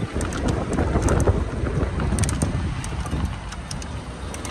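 Off-road jeep driving on a bumpy dirt track: a continuous low rumble with wind buffeting the microphone and scattered sharp rattles and knocks, easing a little near the end.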